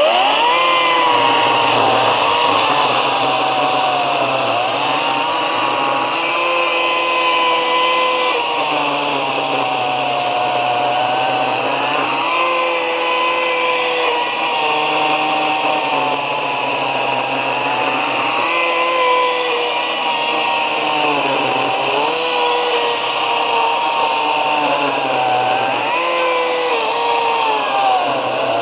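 Ryobi 40V brushless battery chainsaw with a new chain, cutting down into a stump. The motor and chain run continuously, and the pitch of the whine sags and recovers again and again as the chain loads up in the wood and eases off.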